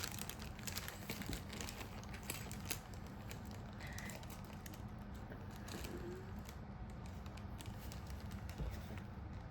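Small plastic craft beads clicking and rattling as they are tipped out of their bag and handled: rapid light clicks, thinning out after about three seconds.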